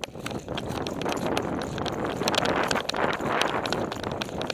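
Running footsteps on dry grass and dirt, a quick uneven run of knocks and clicks, over wind buffeting the microphone of a camera carried on the move.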